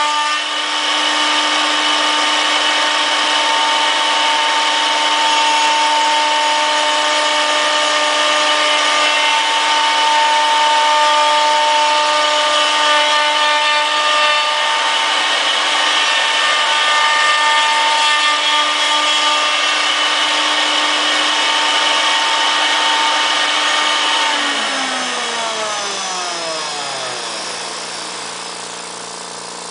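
Horizontal spindle of a shop-built CNC router running at speed with a steady whine, then spinning down over the last few seconds, its whine falling in pitch and fading as it coasts to a stop.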